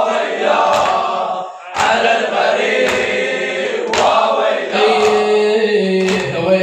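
Men chanting a Shia mourning lament (latmiyya) together, with rhythmic chest-beating (latm): sharp slaps about once a second under the voices.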